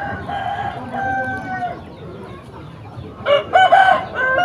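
Roosters crowing: a long crow in the first second and a half, then a louder crow that steps up and down in pitch about three seconds in.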